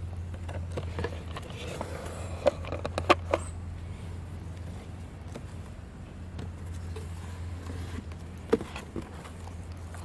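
A plastic model handcar and its cardboard box being handled and packed: rustling and scraping with a few sharp knocks, a cluster about two and a half to three seconds in and one more near eight and a half seconds, over a steady low hum.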